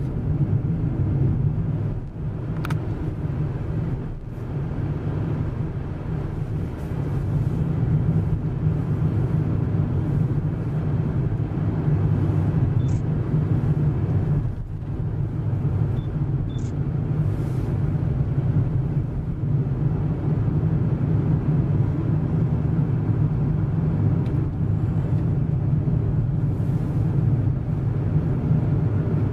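Steady rumble of a car driving along a paved country road, with engine and tyre noise heard from inside the cabin.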